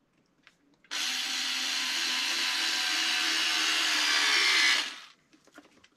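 Cordless electric screwdriver running steadily for about four seconds as it drives a screw-in tungsten stud into the rubber sole of a fishing boot; the motor starts about a second in and stops near the end.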